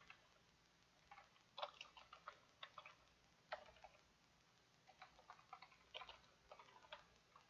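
Faint, irregular clicking of computer keyboard keys being typed, in short runs of keystrokes with brief pauses between them.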